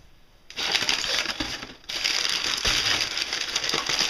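Packing paper crumpling and rustling as a hand digs through a cardboard shipping box, starting about half a second in with a short break near the middle.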